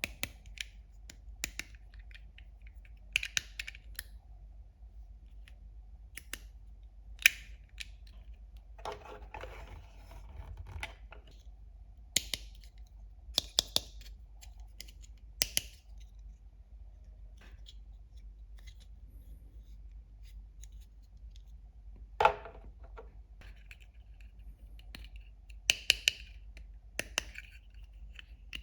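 Scattered sharp clicks and taps of small plastic toy kitchen pieces being handled and set down, with a short stretch of scraping rustle about nine seconds in.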